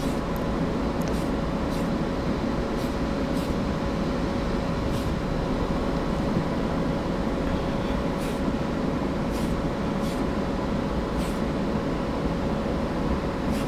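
Hobby spray booth's exhaust fan running steadily: an even hum with a steady tone in it, and a few faint ticks.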